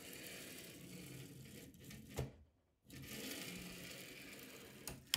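Linear bearings running along 12 mm steel Z rods as a 2020 aluminium extrusion on the bed arms is slid by hand: a faint, steady rolling sound in two strokes, each ending with a light knock. The rods are parallel and the carriage moves smoothly, without binding.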